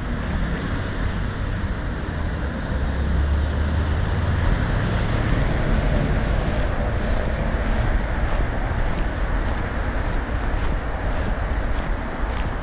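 Road traffic passing close by: steady tyre and engine noise that swells in the middle, with footsteps on the pavement toward the end.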